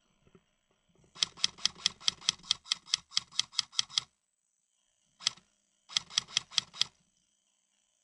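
Airsoft gun firing a quick string of about fourteen sharp shots at roughly five a second, then a single shot, then a burst of five more.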